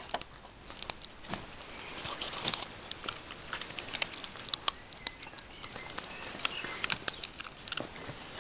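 Puppy gnawing a chew bone: irregular clicks and crunches of teeth working the chew.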